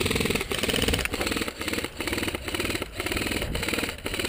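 Electric airsoft rifle (KWA KM4-SR10 AEG) firing full-auto, a fast mechanical buzz of rapid shots that starts suddenly and runs in stretches broken by short pauses.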